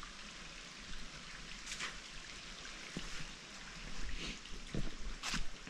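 Steady running water of a small canyon stream at the foot of a waterfall, with a few short rustles about two, four and five seconds in.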